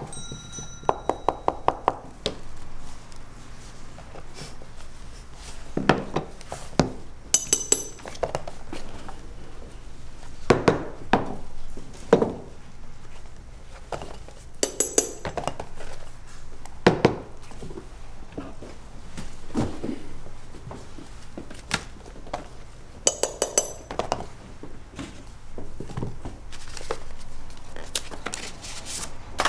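Shoemaker's hand tools working on a shoe: scattered taps and knocks, with a quick run of light hammer taps in the first two seconds and three groups of bright metallic clinks spread through the rest.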